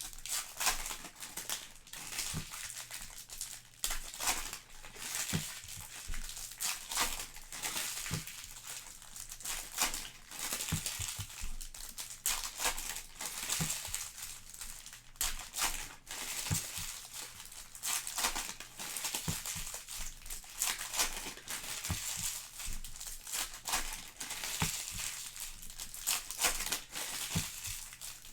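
Trading-card pack wrappers crinkling as they are handled and opened, with many small clicks and taps of cards and packaging.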